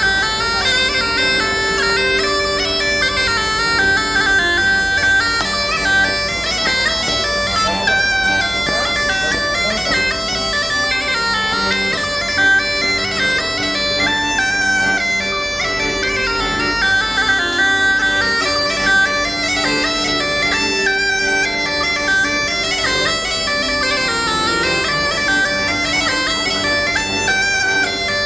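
Bagpipes playing a schottische dance tune, the melody moving over a steady drone.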